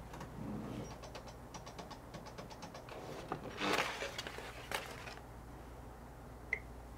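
Brother PrintModa Studio printer feeding out a long printed paper banner: a run of rapid faint clicks from the feed mechanism, then a louder burst of noise about halfway through. A short high beep sounds near the end as the touchscreen is pressed.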